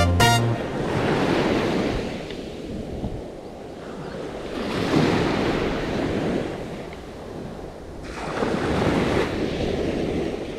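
Surf on a sandy beach: waves breaking and washing up the shore, swelling and ebbing about three times.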